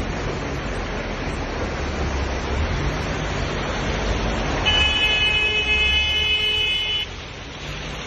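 Steady rushing noise of a flooded street, with water running and cars moving through it, and a car horn sounding for about two seconds a little past the middle.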